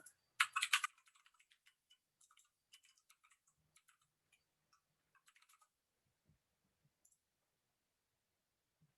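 Computer keyboard being typed on: a quick flurry of key clicks about half a second in, then scattered lighter clicks that die away after about six seconds.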